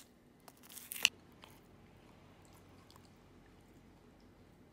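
Metal spoon breaking into a crisp baked puff-pastry crust: a few short crackles and a sharp click about a second in.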